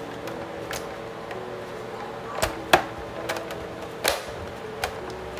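A few sharp knocks and clicks of things being handled in a kitchen, the loudest one about halfway through, over a steady faint hum.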